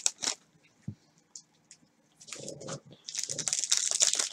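Trading-card pack wrapper crinkling as it is handled and opened, with a few small ticks of cards, then a run of dense crackling in the second half.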